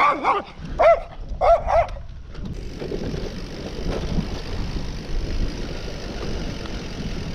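A small shaggy dog yapping about five times in quick, short calls. Then, from about two and a half seconds in, a steady rush of wind and tyre noise as a bicycle rolls along a dirt track.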